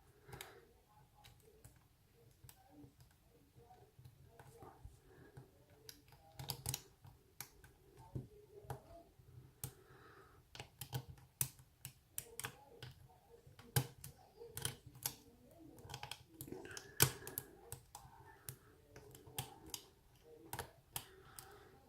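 Faint, irregular clicks and light scraping of a steel hook pick working the pins inside a pin tumbler lock held under tension, as pins are set one by one.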